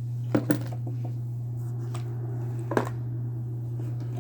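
A few small clicks and knocks of objects being handled, two close together about half a second in and one near three seconds, over a steady low hum.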